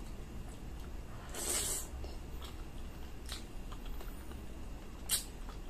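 Close-up eating sounds of a person eating spaghetti: chewing and wet mouth noises, with a brief rushing slurp about a second and a half in and a few sharp clicks later on.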